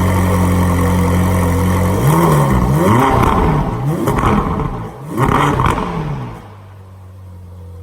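Ferrari 458's V8 engine idling, then revved in several quick throttle blips from about two seconds in, the pitch climbing and falling each time, before it settles back to a quieter idle near the end.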